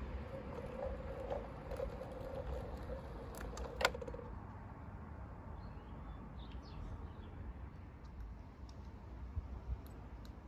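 A model garden-railway locomotive and its van rolling past on the track. For the first few seconds the locomotive's motor gives a steady wavering hum, with a sharp click about four seconds in. After that come only faint scattered clicks from the wheels on the rails and a few brief high squeaks.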